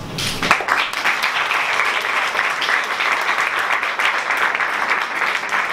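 Audience applauding: many people clapping, breaking out within the first half second and keeping up steadily.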